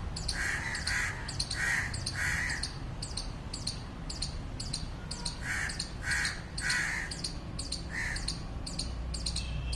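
Squirrel giving short, harsh barking calls in two bouts of about four, each about half a second apart, over a steady high insect chirping.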